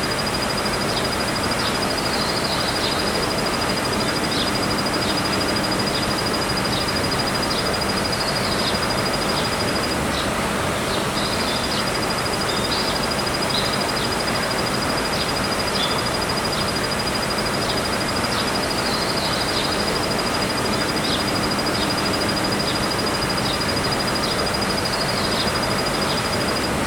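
Kuma-suzumushi cricket (Sclerogryllus punctatus) singing a continuous high, steady trill. It breaks off for about a second roughly ten seconds in, then resumes. Short, slightly lower calls repeat every second or two over a steady background hiss.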